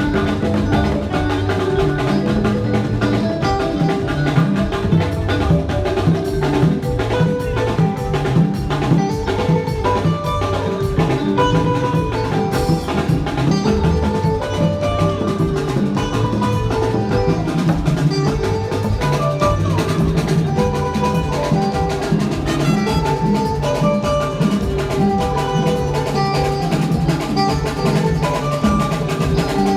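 Band playing an instrumental passage at a sound check: a drum kit keeps a steady beat under held melodic lines, with no singing.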